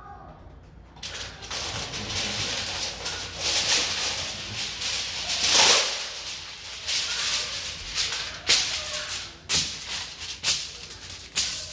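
Aluminium foil crinkling and rustling as a sheet is handled and spread over a countertop, loudest about halfway through, with a few sharp crackles near the end.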